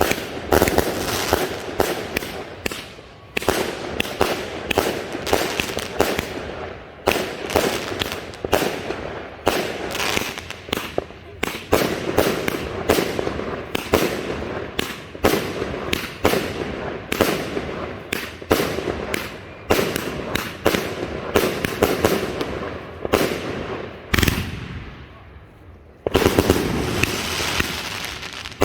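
Weco Harmonica 54-shot firework cake firing: a fast run of sharp shots and bursts, about two a second. The shots thin out briefly about 24 seconds in, then pick up again loudly near the end.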